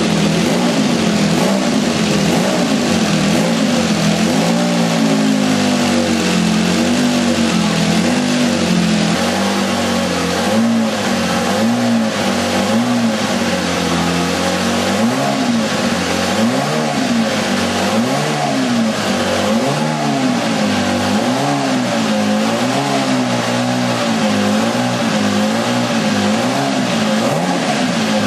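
Ferrari 156/85 Formula One car's 1.5-litre turbocharged V6 running stationary and being revved in repeated short blips, the pitch rising and falling about once a second.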